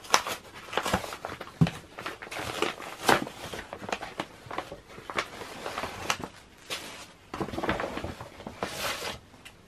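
Stiff paper bag rustling and crinkling as it is pulled out of a cardboard box and handled, in irregular strokes, with a few soft knocks against the box, the clearest about one and a half seconds in.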